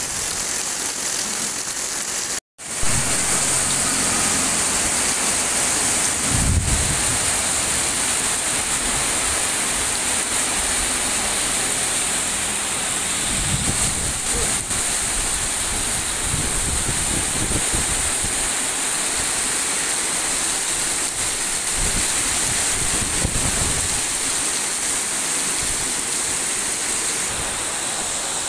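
Heavy rain pouring steadily in a strong wind, with several low rumbles rising and fading through it. The sound cuts out for a split second about two and a half seconds in.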